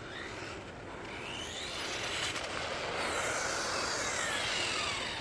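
Electric motor of a homemade aluminium-bodied RC car whining over a rushing hiss of tyres: the whine rises steeply in pitch as the car speeds up about two seconds in, then falls away again through the last couple of seconds.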